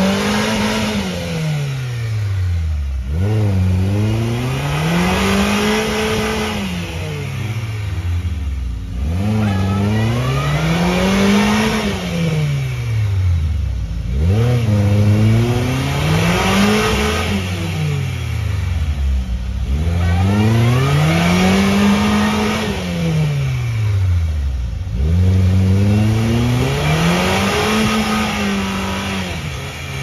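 Off-road 4x4's engine revving up and down in a slow, even cycle, rising and falling in pitch about five times, each swell lasting about five to six seconds.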